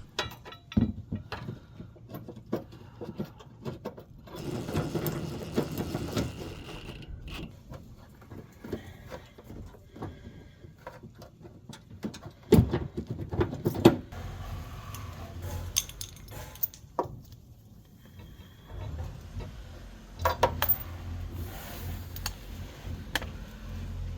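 Metal clinking and tapping of hitch bolts, washers and tools as the bolts are worked into a loose threaded insert behind the bumper, with scattered sharp knocks, the loudest two a little past halfway. A low steady rumble comes in near the end.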